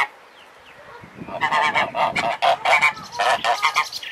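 Domestic geese honking: after a quiet first second, a rapid run of repeated short honks.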